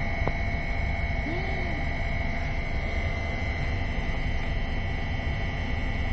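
Steady low rumble and hum inside a train carriage, with a thin, steady high whine above it.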